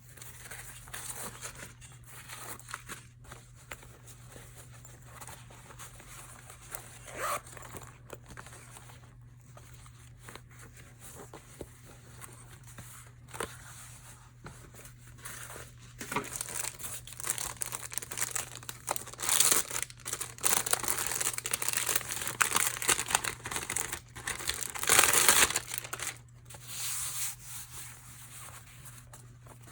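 Packaging being handled by hand, crinkling and tearing: light, scattered rustles at first, then busier and louder crinkling and tearing from about halfway through. A steady low hum sits underneath.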